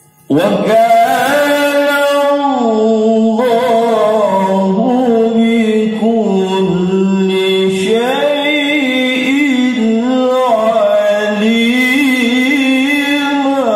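A man reciting the Qur'an in the melodic tilawah style of a qari, heard through a PA loudspeaker. The voice comes in suddenly a moment in and holds one long phrase, sliding up and down through ornamented turns.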